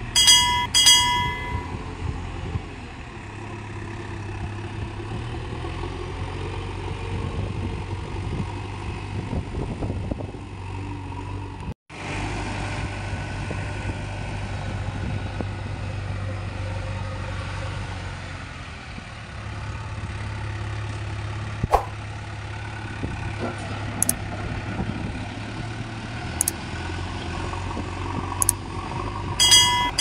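Diesel engine of a JCB backhoe loader running steadily as the machine works, with a brief break near the middle and a few sharp knocks in the second half. A short chime rings just after the start and again at the end.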